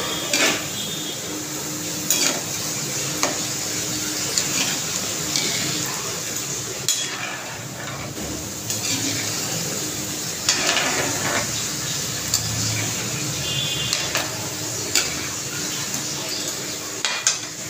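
Sabudana and potato snack balls deep-frying in hot ghee in a metal kadhai with a steady sizzle. A perforated metal slotted spoon clinks and scrapes against the pan every second or two as the pieces are turned.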